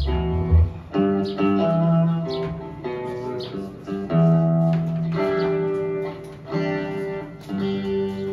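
Guitar music: plucked notes and chords struck about once a second and left to ring.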